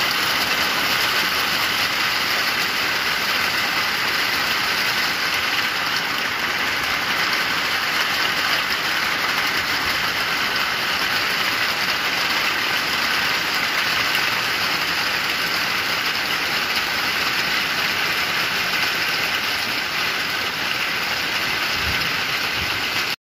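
Heavy rain pouring down onto open water and reed beds, a dense, steady hiss.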